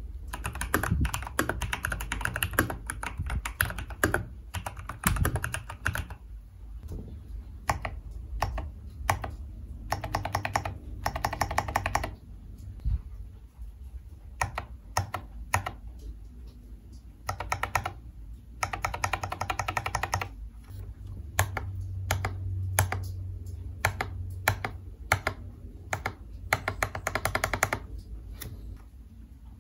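Typing on a Keydous NJ80 mechanical keyboard with lubed and filmed JWK Tactile T1 switches and PBT XDA keycaps, mounted on its brass plate: fast flurries of keystroke clacks alternating with slower single strokes. Toward the end the same board is heard with the steel plate instead.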